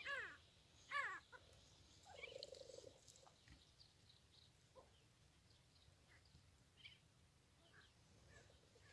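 Sandgrouse calling from a flock in flight: two loud calls that fall in pitch, one at the start and one about a second in, then a short low buzzy call around two seconds in. Scattered faint chirps follow.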